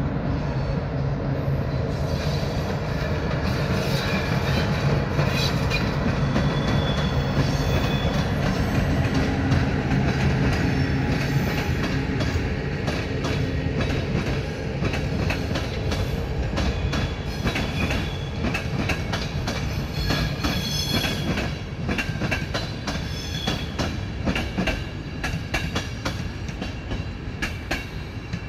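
A train rolling past, its wheels clacking repeatedly over rail joints and points, over a steady low drone, with thin high wheel squeals now and then. It grows slightly louder in the first few seconds, then slowly fades.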